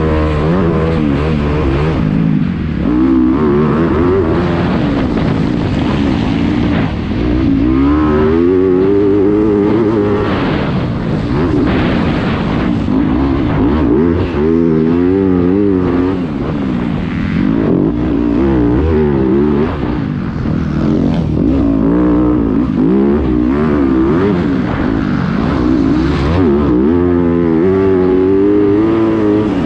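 Yamaha YZ250F's 250 cc four-stroke single-cylinder engine heard from on the bike, revving up and dropping back over and over as the rider opens and closes the throttle and shifts through the corners and straights of a motocross track.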